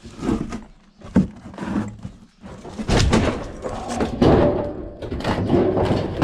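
Heavy scrap metal being handled: a sharp knock about a second in, then a few seconds of clattering and scraping as the piece is dragged and shifted.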